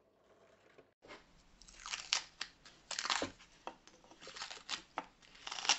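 Masking tape being peeled off plywood pieces and crumpled by hand: a string of irregular crackling rips starting about a second in.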